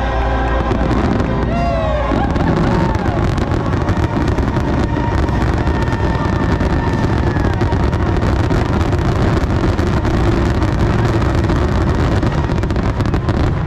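Fireworks display finale: show music gives way about two seconds in to a dense, continuous barrage of firework bursts, with the music faint beneath it.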